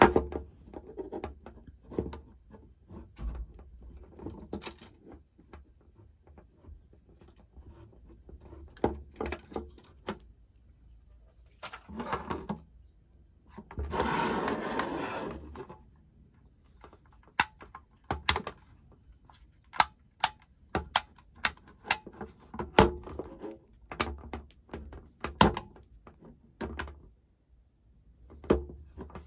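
Hands handling a four-socket extension power bar and its packaging: scattered sharp clicks and knocks, with a rough rustling, scraping noise lasting about two seconds midway.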